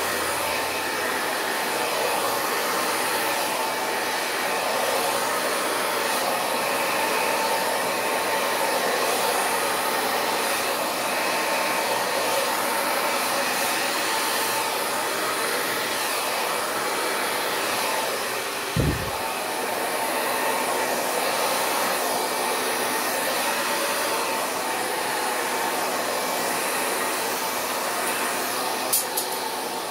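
Hand-held hair dryer blowing steadily on its low, cool setting, pushing wet acrylic paint across canvas in a Dutch pour. There is one brief low thump about two-thirds of the way through, and a couple of sharp clicks near the end.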